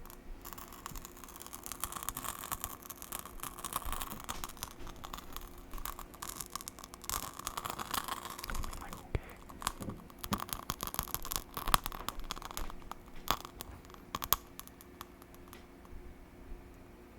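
Close-miked, irregular sharp crackles and clicks, with two stretches of soft hissing, one early and one in the middle.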